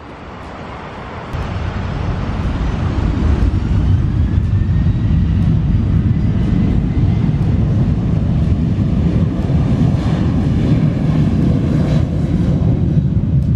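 Ryanair Boeing 737 jet engines at takeoff power on the takeoff roll: a loud, steady jet roar that builds about a second in, with a faint rising whine as the engines spool up.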